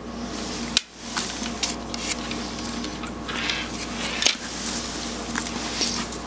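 Handling noise as wires and alligator-clip leads are moved about on a paper-covered circuit board: scattered clicks and rustles, the sharpest about a second in and again near four seconds, over a steady faint hum.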